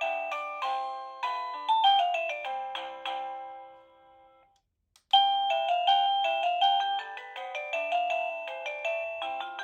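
Avantek wireless doorbell chime playing an electronic melody of bell-like notes. The tune dies away about halfway through, and after a brief pause a different tune starts.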